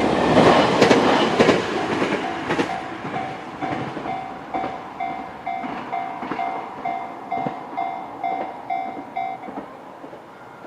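Hokuetsu Express HK100 electric railcar going over a level crossing, loudest in the first two seconds, then moving away with wheel clicks over the rail joints. Throughout, the crossing's JR-standard electronic warning bell rings about twice a second and stops about nine and a half seconds in, as the train clears the crossing.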